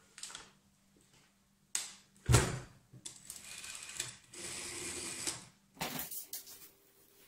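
Crumpled brown paper rustling around an old General Electric rotary-dial telephone, with a heavy knock about two seconds in. Near the middle the dial is turned with a brief ratcheting, then spins back with a short mechanical whir.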